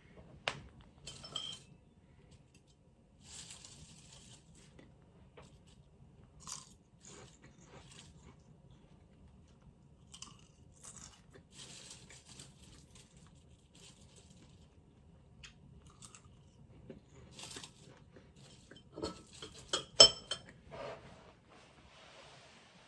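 Crunchy food being bitten and chewed close to the microphone, in scattered crunches, with a louder sharp click about twenty seconds in.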